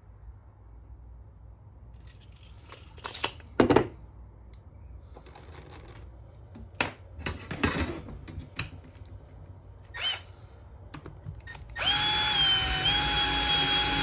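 Small clicks and knocks of a metal bottle opener being handled against a wooden board, then a cordless driver runs steadily near the end, driving a mounting screw through the opener into the wood, its pitch dipping briefly as it takes the load.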